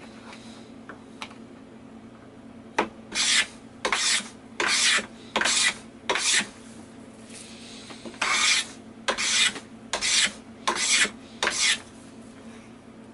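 A hand tool worked in strokes along a thin wooden strip: about a dozen short scraping strokes in two runs, with a short pause between them.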